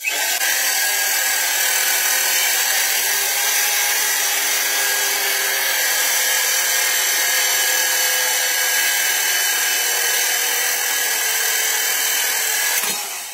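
Electric drill spinning an abrasive cutting disc through a hardened steel sickle blade: a steady, loud, high-pitched grinding hiss over the motor's whine. It starts abruptly and stops near the end as the drill is released.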